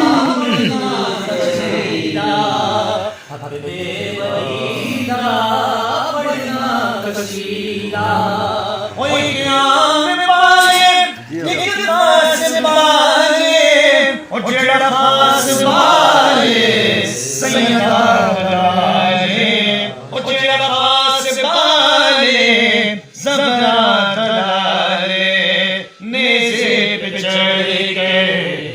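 Islamic devotional naat chanted by voices in a continuous melody, with a few short pauses between phrases.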